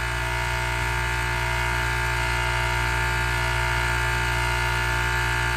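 Three-phase refrigeration condensing unit's compressor running with its condenser fan disconnected: a steady hum with several fixed whining tones. The compressor sounds torn up, and its valves are shot, so it cannot build head pressure.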